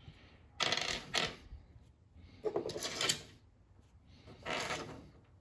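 Hands picking up and setting down small loose hardware (bolts, washers, spacers) on a workbench, in three short bursts of handling noise, each under a second.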